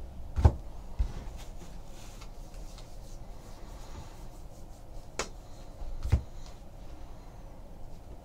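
Baseball trading cards being handled and flipped through on a table, with light rustling and a few sharp knocks as cards or packs are set down. The knocks come about half a second and a second in, then again about five and six seconds in.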